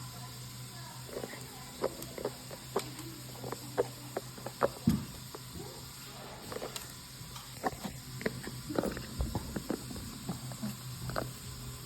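Irregular light taps and scuffs, some in quick clusters, over a steady low hum.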